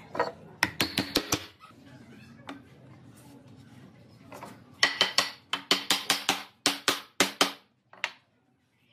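Sharp wooden knocks as a glued pine frame is knocked together at its joints: a quick run of about five knocks near the start, then a longer run of about a dozen, roughly four a second, in the second half.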